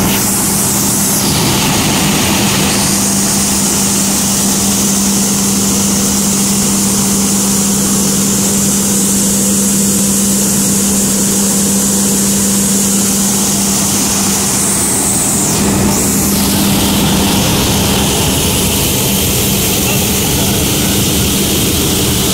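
5XQS-5 gravity destoner running: a loud, steady mechanical drone with a strong low hum and an even rushing hiss of air from its blower, as the vibrating deck separates stones from black pepper.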